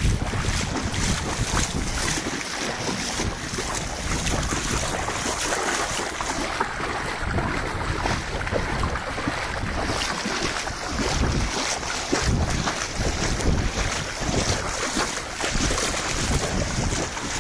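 Wind gusting over the camera microphone: a steady rush with uneven low buffeting.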